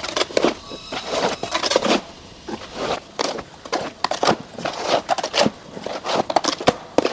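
Manure being scraped and pushed by hand across a barn floor: a run of irregular scrapes and crackles, one or two a second.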